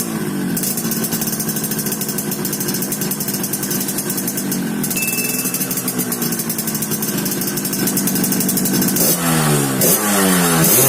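Yamaha RX-King single-cylinder two-stroke motorcycle engine running with its exhaust set up for a snoring "ngorok" note. It holds a steady, lightly swelling idle, then the throttle is blipped quickly several times near the end.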